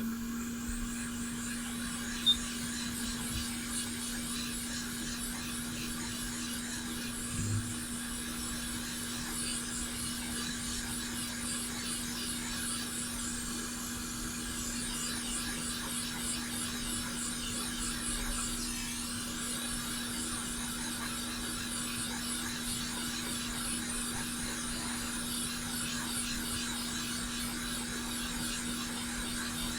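Small fan blower running steadily on the repair bench, a constant low hum under an airy hiss, with a single sharp click about two seconds in.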